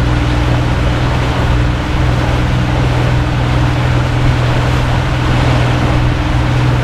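Motorboat engine running steadily under way, with a steady low hum, mixed with wind and water rushing past the hull.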